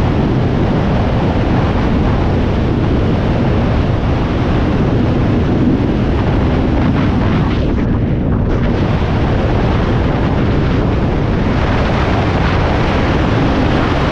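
Enduro dirt-bike engine running steadily under throttle while riding, with heavy wind noise on the microphone.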